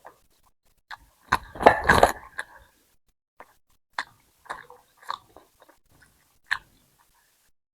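Close-miked chewing and mouth sounds of someone eating a mouthful of food, busiest about a second and a half in, then a few separate smacks and clicks.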